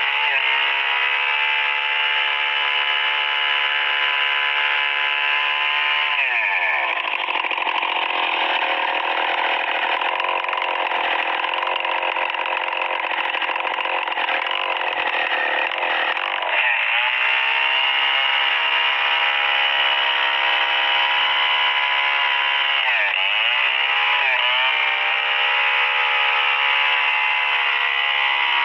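STIHL 070 two-stroke chainsaw at full throttle, ripping lengthwise through a hardwood merbau log. About six seconds in, the engine note drops and turns rougher as the saw bogs under load in the cut. Past the middle it climbs back to a steady high note, with a couple of brief dips near the end.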